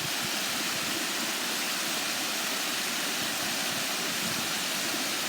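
Running water: a steady, even rush with no breaks.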